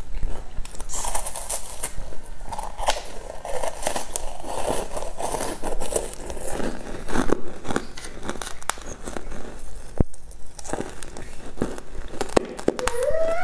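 Close-miked eating: flaky, sugar-coated pastry crackling and tearing as pieces are pulled off by hand and chewed, with crisp crinkly clicks. Near the end comes a short whine that rises and falls.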